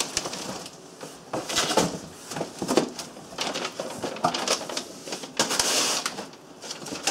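Cardboard box flaps and paper being handled: irregular rustling and crinkling with small sharp clicks, and a longer rustle late on.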